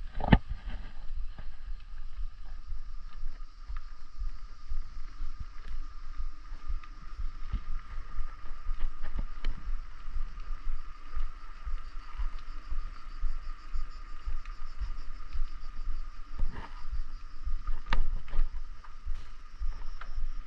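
Wind buffeting the microphone and tyre rumble from a bicycle in motion, with a faint steady whine and scattered knocks and clicks from bumps.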